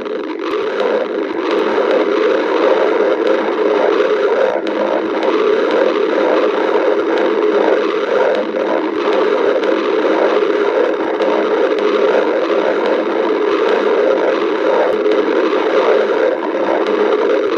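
Stomach growling, loud and continuous, with no pauses.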